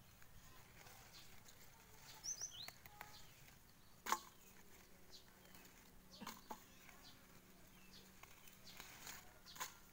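Faint outdoor ambience with a few short bird chirps about two and a half seconds in, and several sharp clicks, the loudest about four seconds in.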